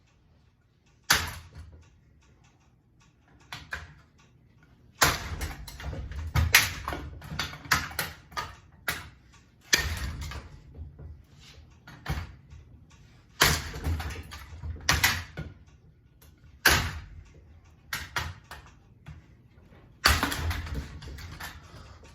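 A ceiling fan being smashed: about seven hard blows at uneven intervals, each followed by clattering and rattling of loose parts.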